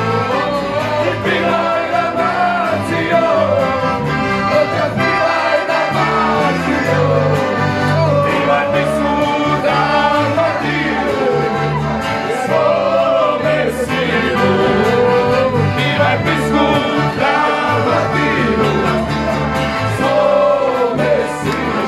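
Live piano accordion and guitar playing a song while men sing loudly together over it, with no break in the music.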